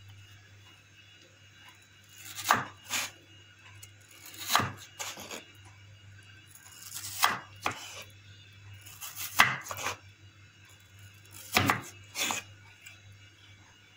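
Crinkle-cut knife chopping through raw potato onto a wooden cutting board, in five pairs of sharp strokes about two seconds apart.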